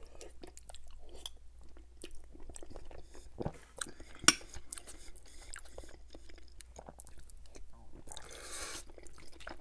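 Close-miked chewing and wet mouth sounds of eating cheesy baked penne pasta, with small clicks and smacks throughout. A sharp clink about four seconds in as the metal spoon scoops from the glass baking dish, and a short breathy hiss near the end as the next spoonful reaches the mouth.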